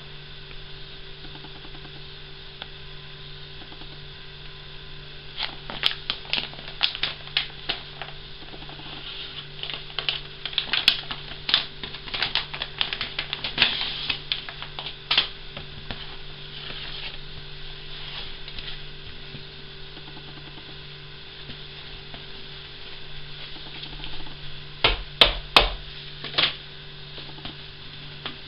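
Clear plastic packaging crinkling and crackling in two spells as it is handled and opened, the second spell briefly louder with a couple of dull thumps, over a steady electrical hum.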